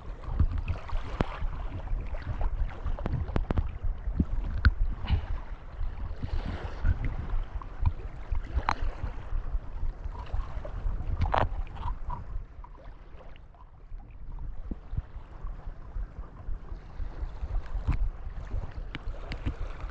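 Wind buffeting the microphone outdoors by the sea, a gusting rumble that rises and falls, with scattered small clicks and knocks.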